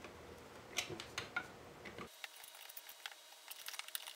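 Faint, scattered clicks and taps of small 3D-printed plastic parts and wires being handled and fitted together.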